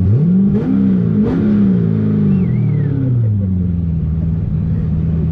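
LS7 V8 engine of a custom tube-chassis 1963 Corvette revved: the pitch jumps up right at the start, rises and falls a few times over the next three seconds, then settles back to a steady idle.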